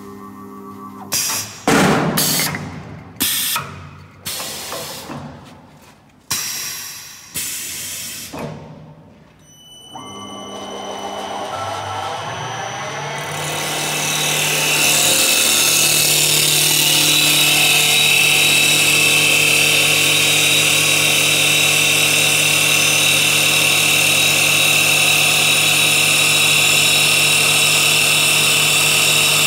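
An auto-feeding CNC wood lathe at work. First comes a run of about eight sharp, loud clatters, each fading out. About ten seconds in, the lathe's spindle and cutter start up, and the noise builds over a few seconds into a steady, loud turning-and-cutting whir with a high whine, as the tool cuts the wood blank.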